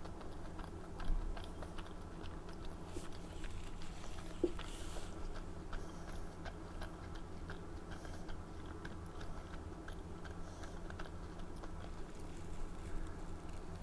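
A person chewing and biting food close to the microphone: many small, irregular mouth clicks and crunches over a steady low hum, with a soft low thump about a second in.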